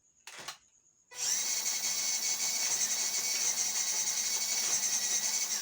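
MN45 RC crawler's small electric drive motor and gearbox whirring steadily for about four and a half seconds under throttle, a high whine over the motor hum, preceded by a brief click.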